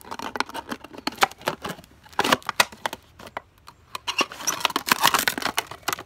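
A razor-blade knife slicing through a thin plastic seltzer bottle, the plastic crackling and crinkling in quick, irregular clicks. The crackling comes in spurts: strong about two seconds in, thinning out, then dense again over the last two seconds.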